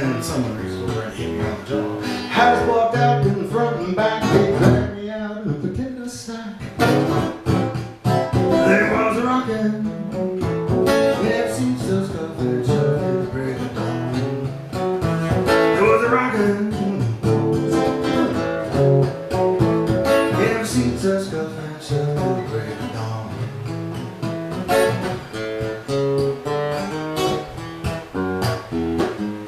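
Acoustic guitar playing a jump-blues tune, picked and strummed in a steady rhythm with many sharp plucked notes.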